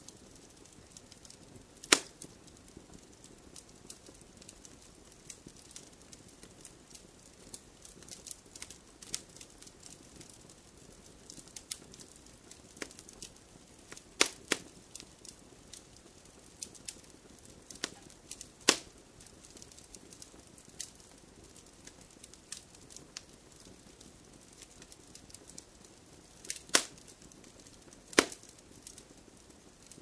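Campfire burning: wood crackling with frequent small snaps over a low steady hiss, and a handful of louder pops scattered through.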